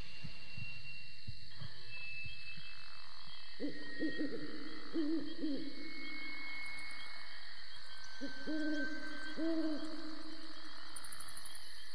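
Owl hooting: two runs of short, arching hoots, the first about four seconds in and the second about eight seconds in, over a faint steady hiss. A few soft low thumps come in the first second or two.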